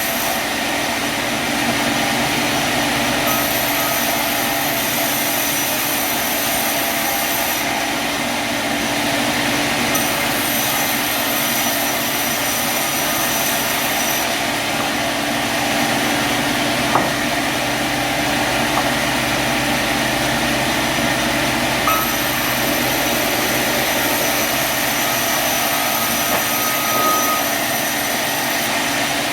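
Sawmill machinery running steadily, a constant engine-like hum with a few brief faint clicks partway through.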